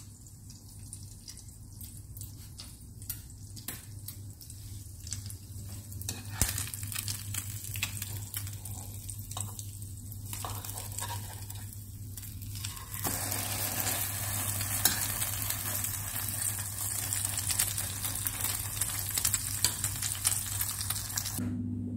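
Egg-soaked bread frying in a pan, crackling and sizzling, with a few spoon clicks against the pan. The sizzle starts about six seconds in and grows louder about halfway through, over a steady low hum.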